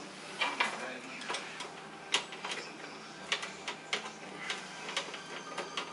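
Screwdriver working the graphics card's bracket screws in a steel PC case, so that the card can come out: small irregular metal clicks and ticks, a few a second.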